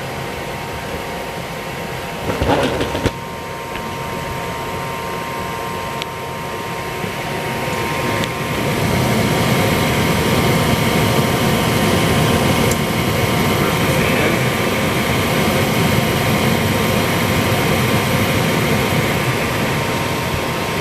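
Newly installed gas furnace running with its burners lit, a steady whirring hum. About eight seconds in the blower fan comes on and a louder rush of air builds and holds. A brief clatter comes between two and three seconds in.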